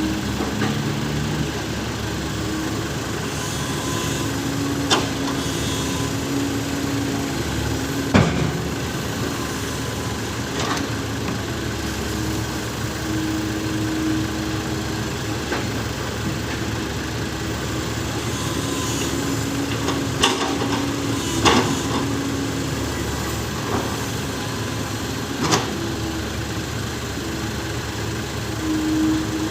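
Small six-wheeled truck's engine running steadily, its pitch shifting slightly now and then, with a few sharp knocks or clacks at irregular moments.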